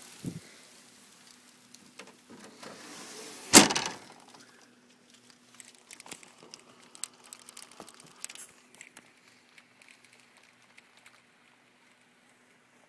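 Heavy rain hissing, with a thump at the start and a loud sharp bang about three and a half seconds in. After the bang the rain hiss drops away, leaving scattered light taps of rain drops that thin out toward the end.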